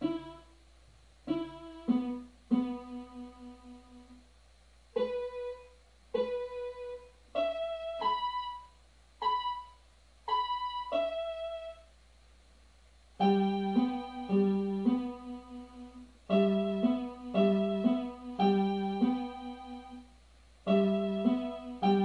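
Electronic keyboard playing a slow folk melody in a piano voice, in short phrases with pauses between them. The tune is single notes at first; about halfway through, chords and lower accompanying notes join it.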